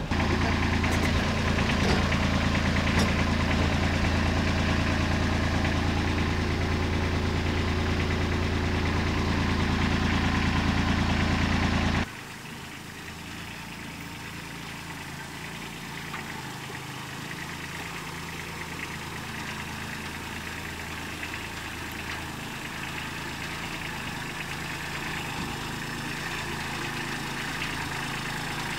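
A motor vehicle's engine running steadily. About twelve seconds in, the sound drops abruptly to a quieter, steady engine sound.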